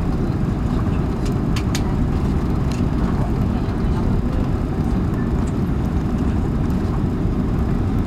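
Steady low rumble inside the cabin of an Airbus A330 taxiing on the ground, its engines running and the aircraft rolling along the taxiway, heard at a window seat beside the engine. A few faint clicks about a second and a half in.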